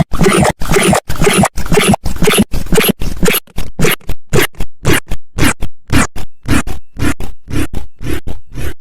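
Loud, distorted stutter-edit audio: one sound chopped into rapid repeated fragments, about five a second, like a record being scratched. About halfway through, the gaps between fragments widen and the fragments shorten.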